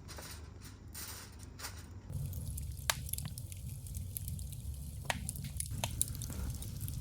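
Wood fire burning, with a few sharp pops and crackles over a low steady rumble.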